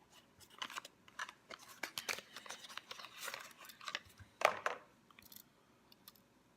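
Close handling noise: a dense run of small clicks, taps and scratchy rustles as a pocketknife is handled near the microphone. The loudest knock comes about four and a half seconds in, then the handling stops.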